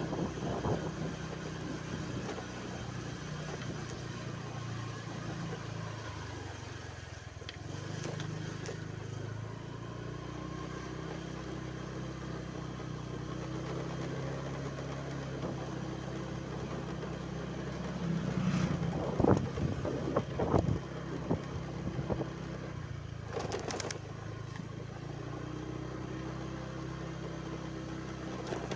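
A vehicle engine running steadily, its pitch stepping up and down now and then, with a louder stretch of knocks and rattling about two-thirds of the way through.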